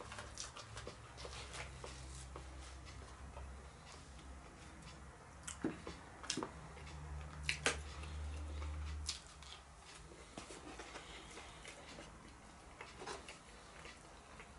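Quiet close-up eating sounds: chewing of roast vegetables and mashed potato, with a fork picking at food in a cardboard takeaway box. A few sharp clicks come around the middle, and a low hum comes and goes.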